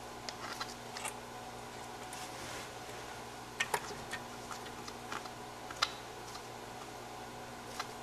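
Scattered soft clicks and taps, with a few sharper ones in the middle, as Eastern Japanese common toads clamber over one another on a plastic dish and tiles, over a steady background hum.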